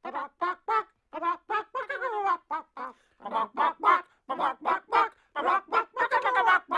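Chicken clucking in a fast run of short, pitched calls, about four a second, some sliding in pitch.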